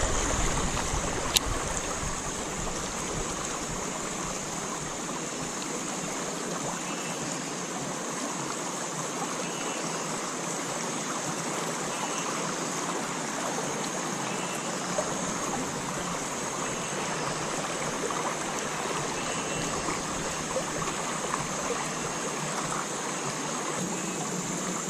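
Shallow river running over stones: a steady rush of flowing water, with a single sharp click about a second in.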